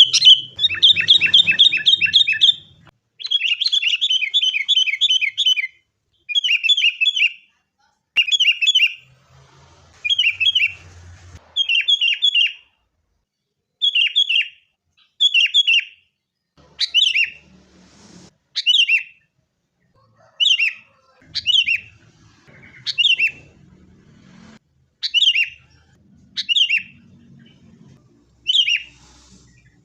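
Sooty-headed bulbul (kutilang) calling. A fast run of chattering fills the first few seconds, then short falling phrases come back roughly once a second.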